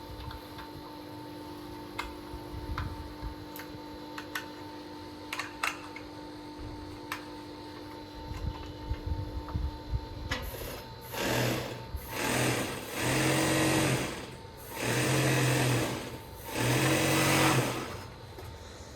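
Industrial sewing machine running in four short bursts in the second half, each a second or so long, as the freshly assembled machine is tried out. Before that there is a faint steady hum with a few light clicks.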